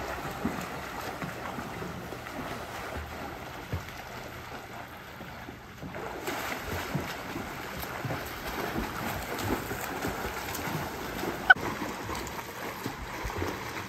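Pool water splashing and churning as several children swim hard across a pool, a steady wash of splashes and strokes. A single sharp click stands out late on.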